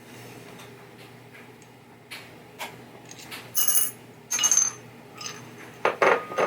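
Small metal hardware and hand tools clinking and clattering as a pinball playfield's posts are worked on: a handful of separate sharp metallic clinks, a couple of them ringing briefly, with the loudest in the second half.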